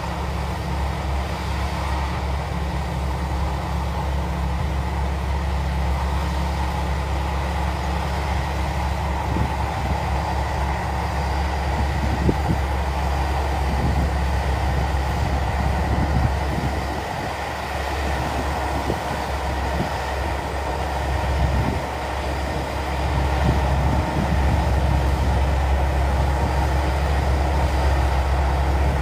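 Rice combine harvester running steadily under load with a deep engine hum and machine drone, with scattered knocks in the middle.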